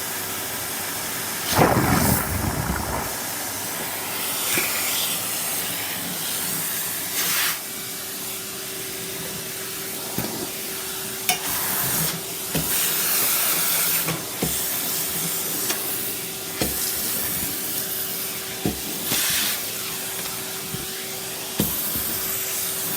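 Vacuum cleaner running steadily as it sucks bits of food off the floor, with a louder surge about two seconds in and several short sharp knocks and rattles as pieces are pulled into the nozzle.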